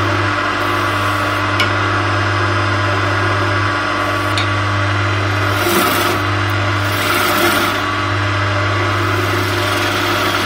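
Wood lathe running with a steady low hum while a hand-held turning tool cuts the spinning linden (lime wood) blank: a continuous scraping hiss of shavings being taken off. The cutting noise swells briefly about six and seven seconds in.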